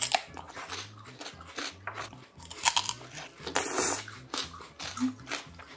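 Close-up crunching and chewing of firm Korean melon (chamoe) flesh, slightly underripe: a run of crisp crunches, the loudest about three and a half seconds in.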